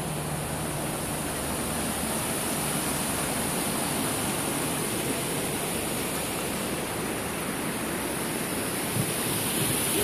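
Small waterfall and stream running steadily: a continuous, even rush of falling water.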